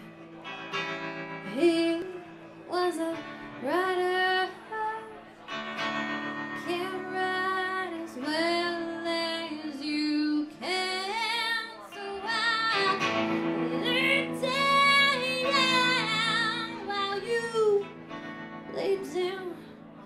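Live band: a woman singing a slow melody with long held notes and vibrato, over guitar accompaniment.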